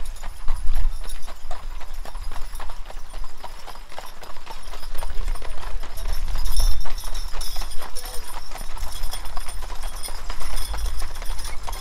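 Hooves of mule teams clip-clopping on a paved road as covered wagons roll past, many uneven strikes overlapping, over a steady low rumble.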